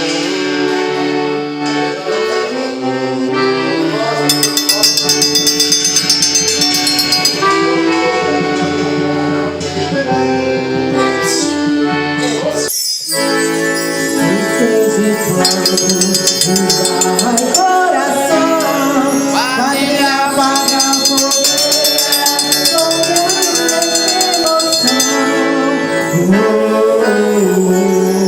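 Accordion-led Northeastern Brazilian festa junina music, with hand percussion keeping a quick, even beat. The music drops out briefly about halfway through.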